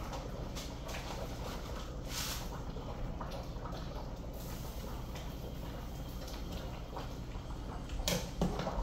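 Kitchen handling sounds: a few light knocks and clatters of pots and utensils over a steady low hum, with a louder clatter near the end.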